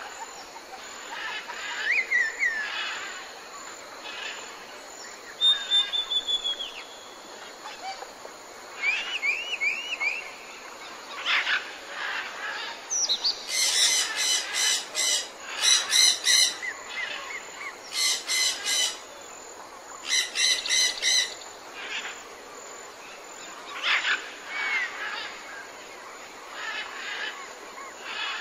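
Wild birds chirping and calling: short whistled notes that slide up and down, with two spells of rapid trilled notes in the middle. A steady outdoor hiss runs underneath.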